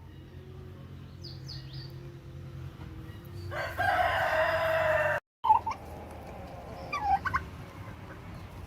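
A rooster crows once, a single call under two seconds long. The sound cuts out for a moment, then a few short clucking calls from the poultry follow.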